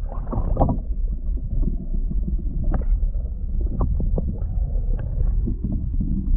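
Underwater sound heard through a submerged camera: a low, muffled rumble of moving water, a splash about half a second in, and scattered small clicks.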